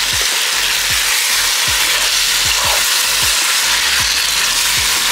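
Chicken curry sizzling steadily in the pan as it finishes cooking. A steady beat of background music thuds underneath.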